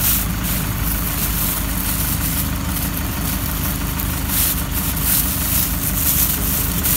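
Vehicle engine idling with a steady low hum, with thin plastic bags crinkling and rustling as they are handled in a cooler box.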